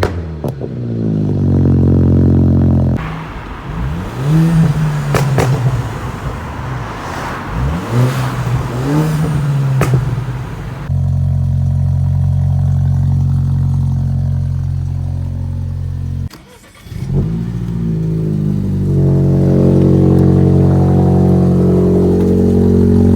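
BMW F20 116i engine on a Stage 1 remap with a pops-and-crackles exhaust tune, revved several times with sharp pops and crackles from the exhaust as the revs drop. In between and afterwards it runs steadily, with one more short rev near the end.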